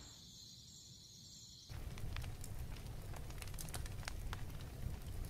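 Steady high trill of crickets at night, cut off suddenly a little under two seconds in by a louder crackling hiss scattered with many small ticks.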